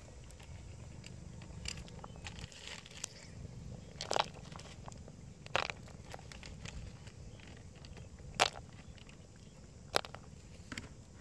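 Wood fire under a cooking pot crackling, with a handful of sharp pops at irregular intervals over a low steady background.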